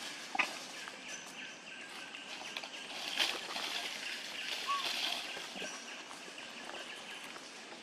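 Outdoor ambience under trees: a steady high hiss with a few short clicks and a brief chirp near the middle.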